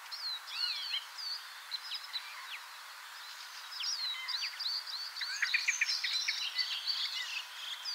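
European starling singing: a varied jumble of short whistles sliding down in pitch, with a quick rattling run of clicks a little past the middle, over a steady background hiss.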